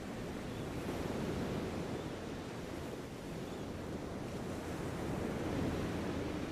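Seaside ambience: wind rumbling on the microphone over the steady wash of ocean surf, a low hiss that rises and falls a little.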